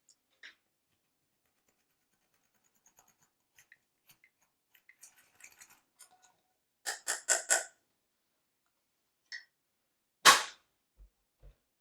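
Slime being squeezed and stretched by hand: faint sticky crackles, then four quick pops of trapped air about seven seconds in, and one sharp, loud pop near the end.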